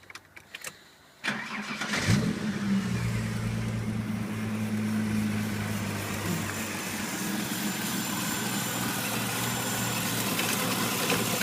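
Holden Commodore engine, running through a 2.5-inch catback exhaust straight off the headers, being started: a few light clicks, a short burst of starter cranking, then it catches about two seconds in and settles into a steady idle.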